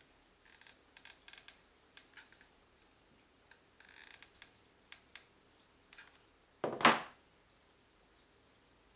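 Faint small clicks and rustles as a hot glue gun and metal chain trim are worked along a fabric lampshade. About seven seconds in comes one loud knock as the glue gun is set down on the wooden tabletop.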